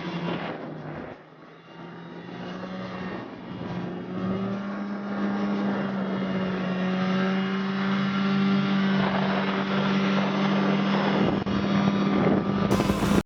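A vehicle engine runs at a steady, even pitch. It dips briefly about a second in, then gets louder from about four seconds in.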